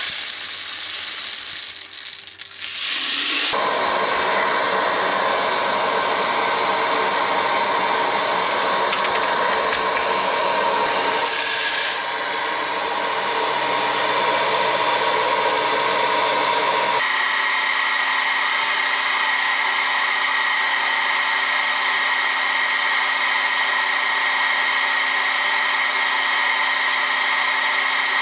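Vintage Wear-Ever Popcorn Pumper electric hot air popper running: its blower motor gives a steady whirring hum with a high whine. The tone shifts abruptly twice, about three seconds in and again past the middle.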